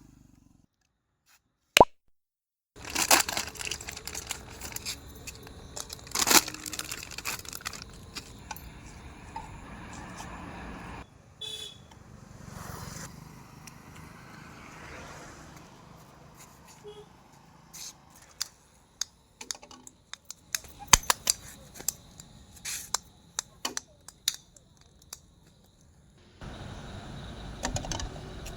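Plastic toy ball-throwing game being played: scattered sharp clicks and knocks of small balls against the plastic toy, with stretches of handling and rustling noise.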